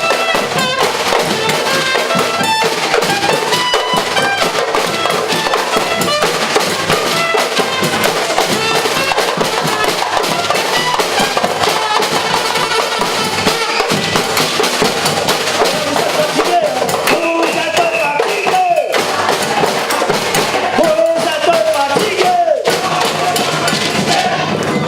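Live percussion group playing a dense, driving drum rhythm. A few sliding pitched sounds come in over the drums past the middle.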